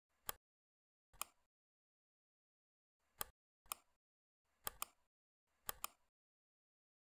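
Computer mouse button clicks against silence: four single clicks, then two quick double clicks in the second half.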